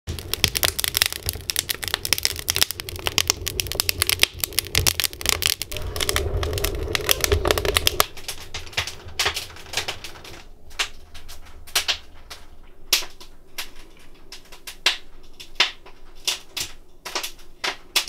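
Split logs burning in a cast-iron Fisher wood stove, crackling and popping thickly over a low rumble of the fire; about halfway through the rumble drops away and the crackle thins to scattered single pops.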